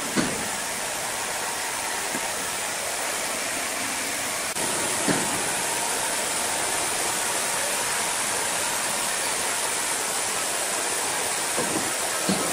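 Steady, even hiss and hum of running sawmill machinery, stepping up slightly in loudness about four and a half seconds in, with a couple of faint knocks.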